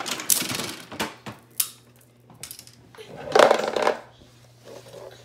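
Handling noises: a few sharp clicks and short rustles, then a louder scraping rustle about three seconds in.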